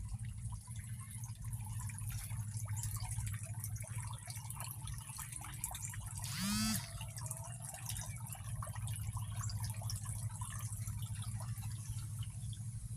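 Water trickling and dripping over a steady low hum, with one short call rising in pitch about six seconds in.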